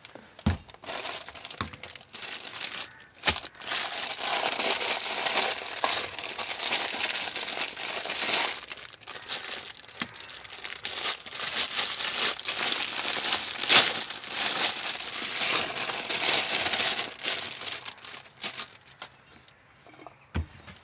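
Plastic bag crinkling and rustling as it is handled, with a few sharp knocks near the start and one near the end.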